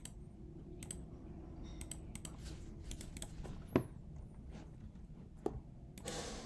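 Scattered light clicks at a computer, as of a mouse and keys, the loudest about four seconds in, over a faint steady hum.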